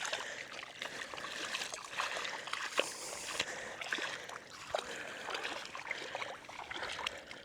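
Light splashing and trickling in shallow seawater, with many small irregular clicks and ticks.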